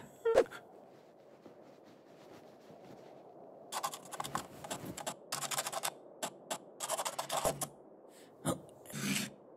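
Marker pen scratching across a wall in a run of quick strokes while drawing, starting about four seconds in and lasting about four seconds. A brief low sound follows near the end.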